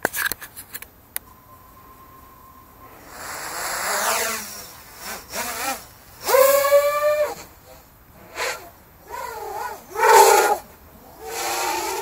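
Racing quadcopter's brushless motors (T-Motor F80 1900kv with Dalprop 7040 props) whining in repeated bursts as the throttle is blipped and the quad takes off, the pitch holding, gliding down or wobbling with each burst. A steady beep sounds for about two seconds near the start.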